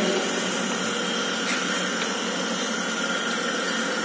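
Lathe running: a steady machine hum with a constant thin high whine over it.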